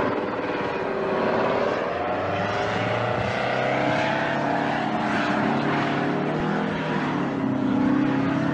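V-22 Osprey tiltrotor's twin turboshaft engines and proprotors running loudly during its crash, the pitch wavering down and up, then settling to a lower steady tone near the end.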